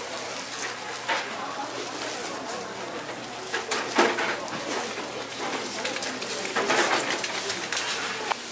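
Thin plastic food-prep gloves crinkling and rustling as hands press and roll gimbap (rice and fillings on a laver sheet) on a wooden board, with a few short knocks about one, four and seven seconds in.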